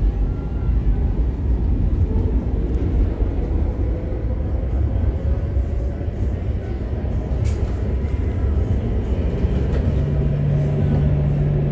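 Madrid Metro Line 10 train running, heard from inside the carriage: a steady low rumble of wheels on the track with faint, slowly rising motor tones. A steady low hum comes in about ten seconds in.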